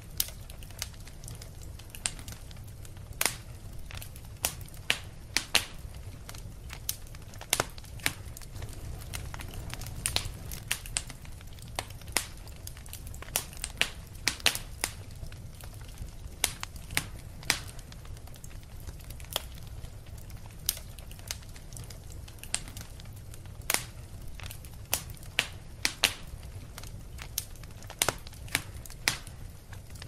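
Wood fire in a fireplace crackling, with irregular sharp pops one or two a second over a steady low rumble of the burning.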